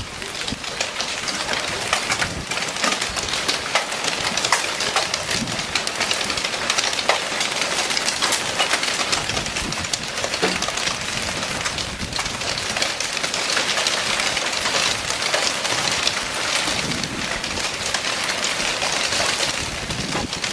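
Hail pelting down onto hard surfaces: a dense, steady clatter of countless sharp ticks over a hiss of heavy precipitation.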